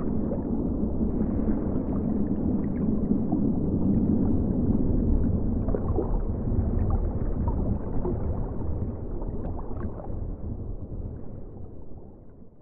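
Low rumbling water ambience with faint gurgles and ticks, fading out near the end.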